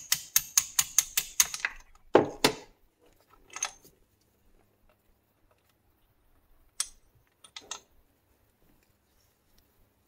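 Quick metal-on-metal hammer taps on a quarter-inch socket extension, about four a second, driving a seized wrist pin out of a chainsaw piston. They stop after a second or so, two harder knocks follow about two seconds in, then a few faint clicks.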